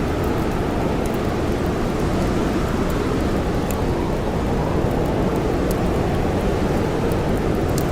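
Snowstorm wind blowing steadily, with a campfire crackling: small sharp pops scattered through the dense rushing noise.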